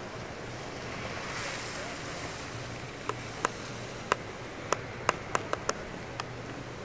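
Steady rushing wind noise across an open ski slope, swelling briefly about a second in. From about three seconds in come about nine sharp clicks, unevenly spaced.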